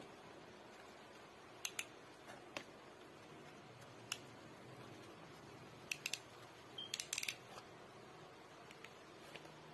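Sharp plastic clicks from a helmet's ratchet head-size adjustment dial and toothed straps being turned and handled. The clicks are scattered singles and pairs, with a quick run of several about seven seconds in.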